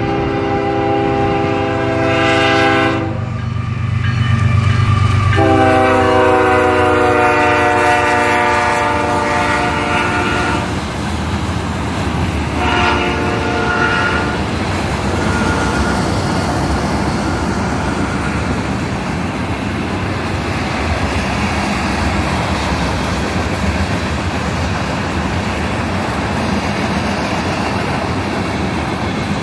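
BNSF diesel locomotive's horn sounding in separate blasts: one at the start, a longer one from about five to ten seconds in, and a shorter one about thirteen seconds in. A long string of loaded oil tank cars follows, rolling past with steady wheel clatter.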